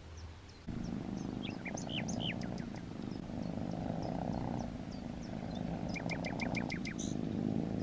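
Kittens purring in a steady low rumble, starting just under a second in, while small birds chirp now and then, with a quick trill of about eight clicks near six seconds in.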